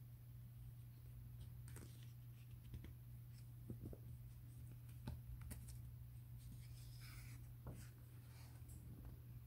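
Faint paper rustles and small clicks of a hardback picture book being handled and a page turned, over a low steady hum.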